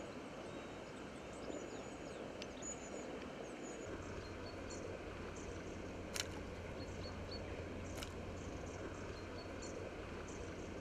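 Faint outdoor ambience: a steady low rumble of wind or background noise with small birds chirping now and then, and two brief sharp clicks, about six and eight seconds in.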